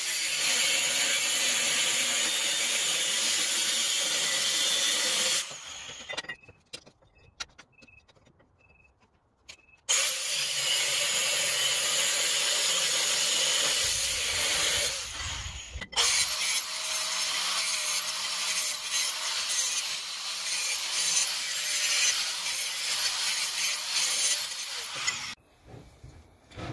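Angle grinder with a cutoff wheel cutting through steel angle iron. It runs in three stretches: about five seconds, a pause of about four seconds, about five seconds more, then about nine seconds with the pitch wavering up and down under load.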